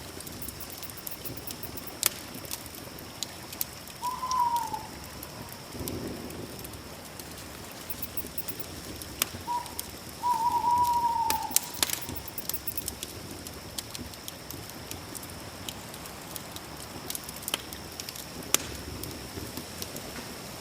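Campfire crackling, with scattered sharp pops, over a steady high-pitched drone from night insects or animals. A bird calls twice, about 4 and 10 seconds in, each call a short note that arches and falls.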